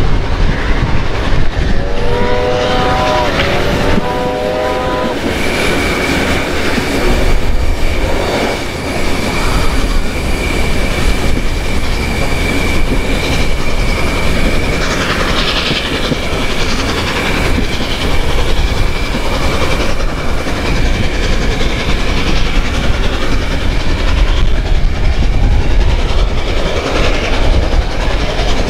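A train running behind Beyer-Garratt steam locomotive 6029, heard from a carriage window: a steady rumble and clatter of wheels on the track. About two seconds in, the locomotive's chime whistle sounds twice. A steady high wheel squeal follows on the curve and lasts through most of the middle.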